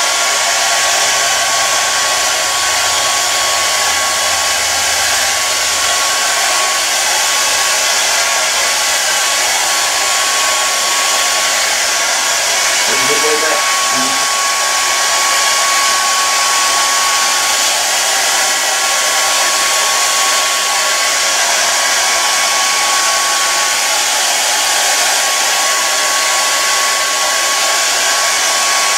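Handheld hair dryer running steadily while blow-drying hair: an even rush of air with a thin, constant whine from its motor.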